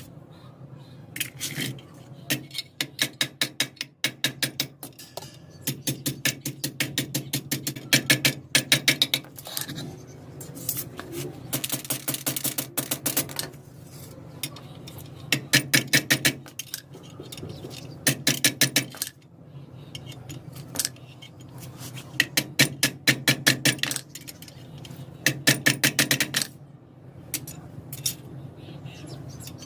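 Metal clinking in quick runs of sharp taps, about ten a second, each run lasting a second or two, over a steady low hum.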